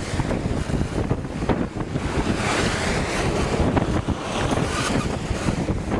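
Wind buffeting the microphone over the rush and hiss of foaming water churning past a sailboat under way in rough seas; the water hiss swells up twice.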